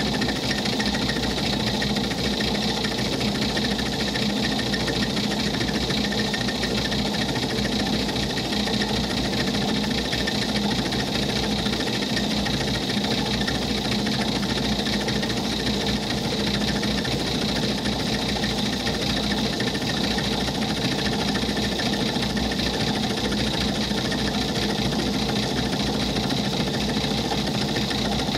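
South Bend lathe running steadily, its chuck spinning a 5/8-inch end mill that is cutting a 45-degree V-groove into a block clamped on an angle plate on the cross slide. The spindle speed is one the machinist thinks might be a bit slow for this end mill.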